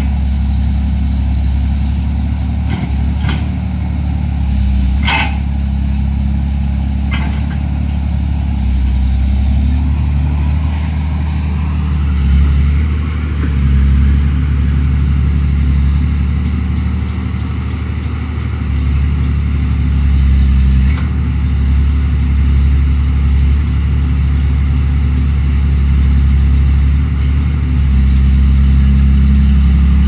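Caterpillar MS180 hydraulic excavator's diesel engine running steadily, its load rising and falling as the boom and bucket work the soil. There are a few sharp knocks in the first several seconds and a rising pitch shortly before the midpoint.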